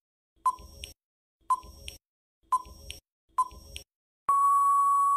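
Quiz countdown timer sound effect: four short pings about a second apart, then one longer steady beep about four seconds in, marking the end of the answer time.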